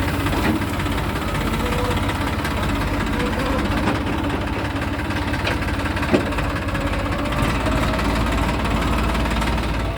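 Heavy diesel engine of a tractor or backhoe running steadily with a rapid low clatter. There is one sharp knock about six seconds in.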